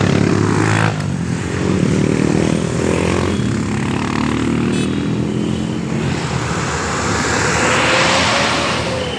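Road traffic passing close by: vehicle engines running, with one vehicle going past loudest about eight seconds in, its tyre noise swelling and then fading.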